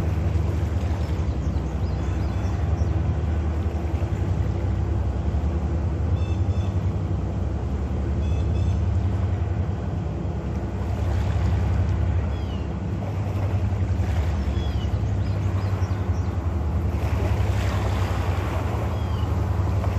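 Steady low drone of a towboat's diesel engines, with a few short high chirps scattered over it.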